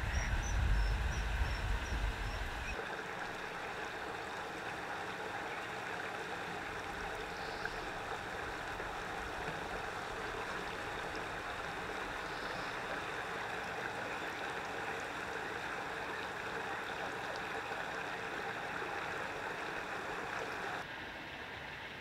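Steady rushing of flowing water. For the first few seconds wind rumbles on the microphone, and a quick series of high, thin bird calls sounds over it.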